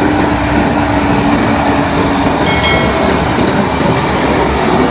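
Heavy dump trucks driving along an unpaved haul road: a steady, loud rumble of engines and tyres.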